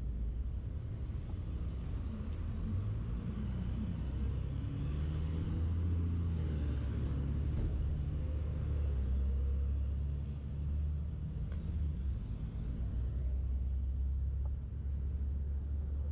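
City street traffic: a motor vehicle's engine rumbling low and close, its pitch sliding up and down over the first several seconds, then holding a steady deep rumble.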